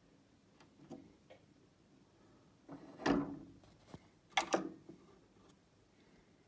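Knocks and clicks of handling around a spinning turntable, with no music playing: a few faint clicks, then a louder knock about three seconds in and a sharp double knock about a second later.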